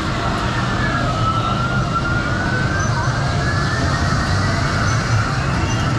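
Spinning kiddie airplane ride running: a steady low motor hum under a whine that slowly rises in pitch.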